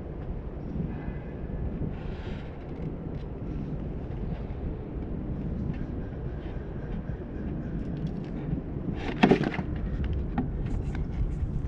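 Wind rumbling on the microphone, with scattered light clicks and one sharp knock about nine seconds in.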